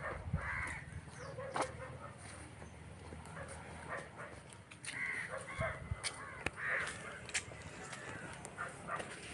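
Crows cawing a few times, harsh calls spaced out across several seconds, with scattered light clicks in between.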